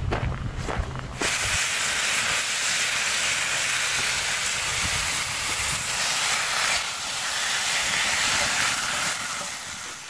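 Hot dogs and onions sizzling in a cast iron skillet: a steady hiss that starts abruptly about a second in and fades away near the end.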